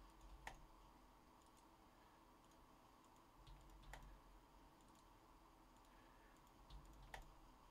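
Near silence: room tone with a few faint, sharp computer clicks, the clearest three about three and a half seconds apart.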